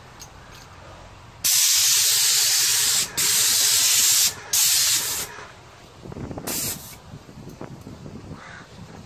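QTech airless paint sprayer's gun with a 517 tip hissing as it atomises smooth masonry paint onto a wall. It sprays in three long bursts with two brief pauses between them, then one short, fainter burst a little later.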